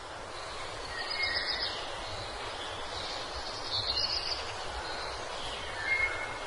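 Countryside ambience: a steady hiss with a few short bird chirps, about one, four and six seconds in.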